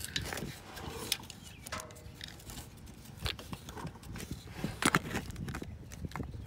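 Handling noise: scattered light clicks and taps from fingers working the plastic connector and green locking strip of an O2 sensor wiring harness, right up against the phone. The loudest cluster comes about five seconds in.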